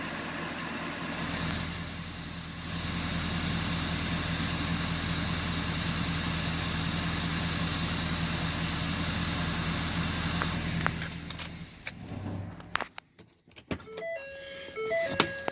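Truck engine idling steadily, then shut off about twelve seconds in, with a few clicks as it stops. A short electronic tune begins near the end.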